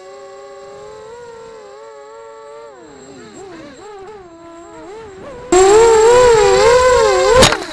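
Eachine Racer 250 racing quadcopter's four brushless motors whining, their pitches wavering up and down with the throttle during a flip. About two-thirds of the way in the whine suddenly gets much louder. Near the end there is a sharp knock as the quad hits the grass, and the motors wind down.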